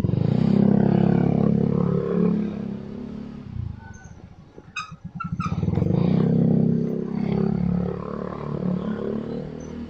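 Motorcycle engine under way, swelling twice as it pulls with a dip in between, and a few sharp clicks about five seconds in.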